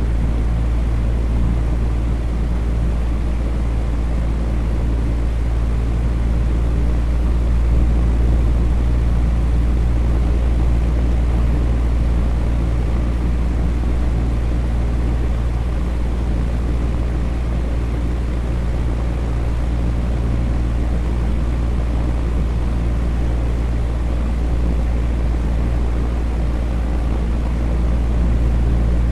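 Fan running steadily: a constant rushing noise, heaviest in a deep rumble, with a faint steady low hum.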